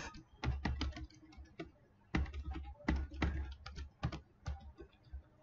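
Typing on a computer keyboard: irregular keystrokes in short runs, with a pause of about a second after the first run.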